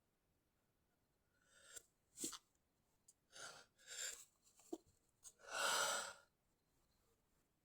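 A person's stifled sneezes, induced on purpose: a run of short, sharp, held-back bursts with quick breaths between them, the last one longer and the loudest.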